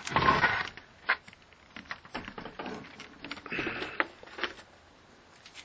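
Handling noise as the disassembled LED TV's backlight panel and the camera are moved: a loud rustle at the start, then scattered light clicks and taps with a second, softer rustle about three and a half seconds in.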